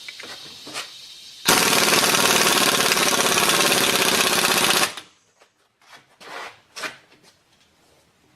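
Impact wrench hammering for about three and a half seconds, starting about a second and a half in, driving the screw of a ball joint press to push a rusty U-joint cup out of its yoke. A steady hiss comes before it, and a few light metal clicks and knocks follow.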